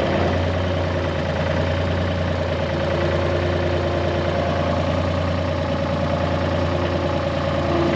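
An engine idling steadily, with a constant low hum and a faint higher whine that comes and goes.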